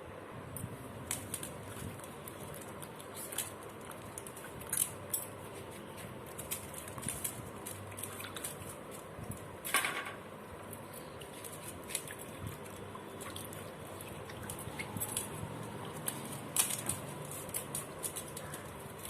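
Hands working vegetables in a basin of soaking water: scattered small clicks, patters and light splashes as chillies are washed and their stems pinched off, with one sharper knock about ten seconds in.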